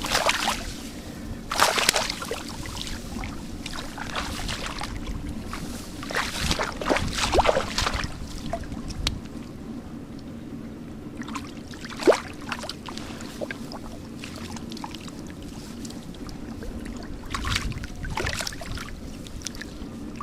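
Water splashing and sloshing in irregular bursts as fish are caught by hand in shallow water, with one sharp splash about twelve seconds in. A steady low hum runs underneath.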